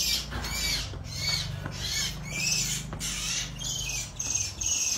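Repeated high-pitched distress squeals, about two to three a second, from a small animal that a cat has just caught.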